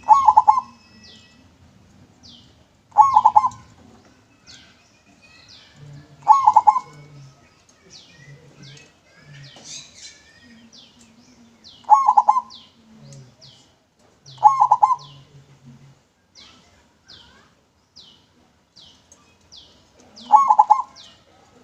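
Zebra dove (perkutut) cooing: six short, rapidly pulsed phrases, each under a second and spaced a few seconds apart. Faint, quick high chirps repeat between them.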